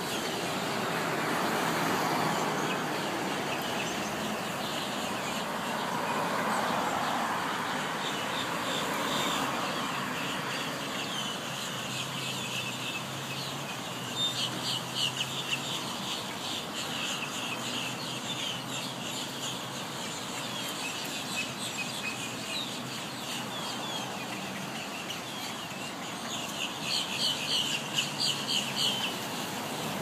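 A large flock of starlings calling overhead: a dense chatter of short, high calls, thickest about halfway through and again near the end, over a steady hum of road traffic.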